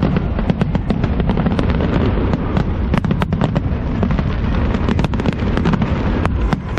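Fireworks display going off in rapid succession: sharp bangs and crackles, several a second, over a continuous low rumble of booms.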